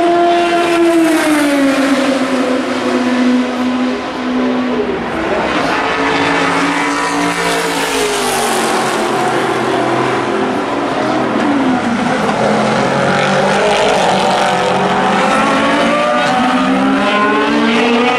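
Several endurance prototype race cars passing at racing speed. Engine pitch falls as they brake in the first few seconds, then rises and falls again as they accelerate and shift. Near the end several engines overlap.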